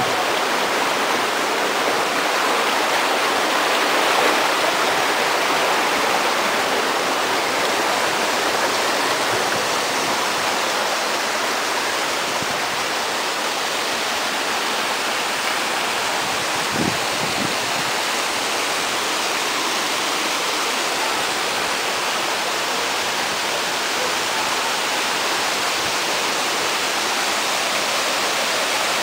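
Steady rush of river water cascading over boulders into a rock pool, a small waterfall.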